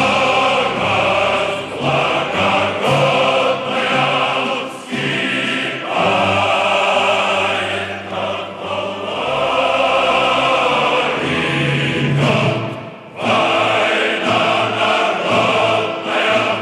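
Choral music: a choir singing long, held notes, with brief breaks between phrases.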